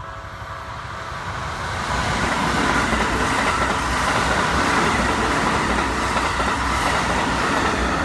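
Keikyu 2100-series electric train running past close by at speed. It grows louder over the first two seconds as it nears, then holds loud and steady as the cars go by. The level crossing warning bell rings under it, heard clearly only at the start.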